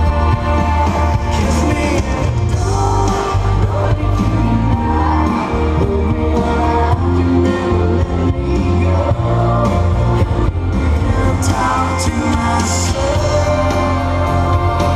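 Dance music with a singer, played loud and without a break through the DJ's sound system, with a steady heavy bass.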